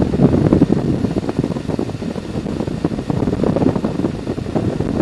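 Wind rushing and buffeting over the fairing-mounted camera's microphone on a Harley-Davidson Electra Glide touring motorcycle riding at highway speed, a steady low-pitched roar with the bike's running mixed in.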